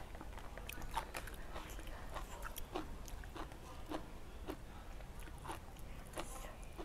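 A person chewing a mouthful of bamboo shoot curry with the mouth closed: a run of small, irregular mouth clicks and smacks.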